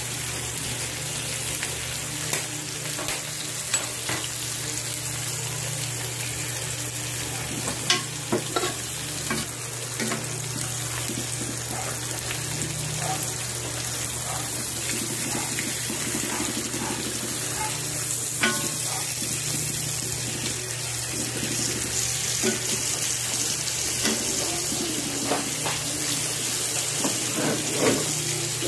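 Pork chops and garlic sizzling in hot oil in a cast iron skillet, a steady frying hiss, with scattered sharp clicks and scrapes of metal tongs against the pan as the chops are turned.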